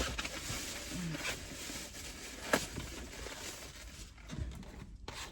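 Quiet rustling from takeout food and its packaging being handled, with a couple of light knocks, the clearest about two and a half seconds in.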